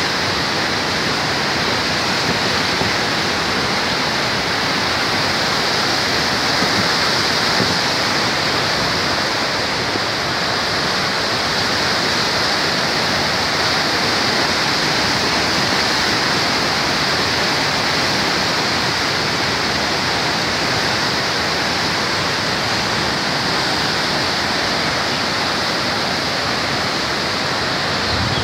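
Saptakoshi (Koshi) River in flood, its turbulent brown water rushing and churning: a loud, steady roar of floodwater.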